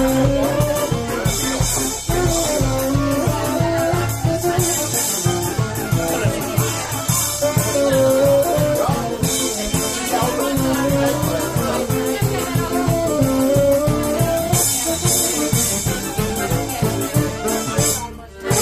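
Background music with a steady beat under a held melody line, briefly dropping out near the end.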